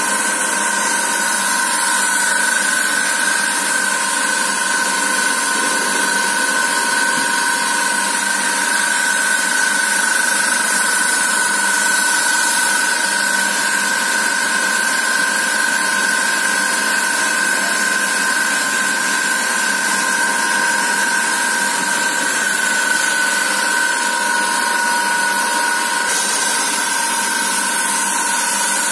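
Thread rolling machine for threaded rods running steadily: a constant machine hum with a high whine and a hissing noise.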